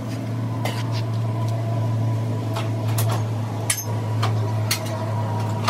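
A steady low machine hum with a few light clicks and metal taps scattered through it, as the steel brake disc is handled.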